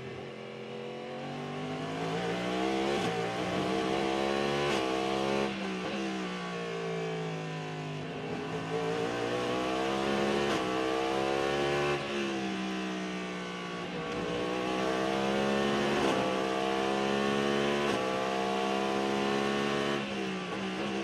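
Cadillac V-Series.R's 5.5-litre V8 at racing speed, heard from the cockpit: the pitch climbs in repeated sweeps, each broken by a quick upshift, and falls back a few times as the car slows for corners before climbing again.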